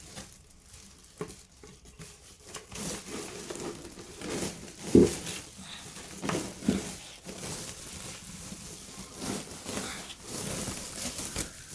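Rustling and handling noises with scattered small knocks, and one louder thump about five seconds in.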